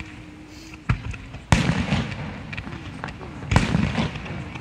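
Aerial fireworks display going off: several sharp bangs, the loudest about one and a half and three and a half seconds in, each trailing off in echo.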